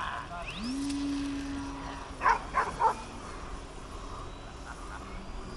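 A dog barking three times in quick succession, a couple of seconds in, after a short hum that rises in pitch and then holds steady for about a second and a half.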